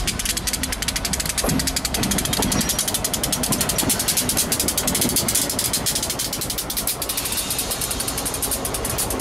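EMD SD50 diesel-electric locomotive, with its 16-cylinder EMD 645 engine, passing close at low speed. The engine runs with a fast, even rattle over a low rumble.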